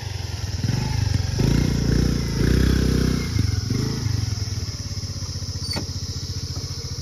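Small motor scooter engine running, swelling briefly as it is nudged into a parking space and then settling to an idle.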